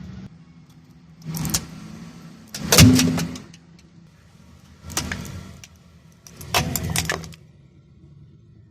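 Car tyre rolling over and crushing objects: four sudden crushing noises, the loudest about three seconds in, over the low hum of the car's engine.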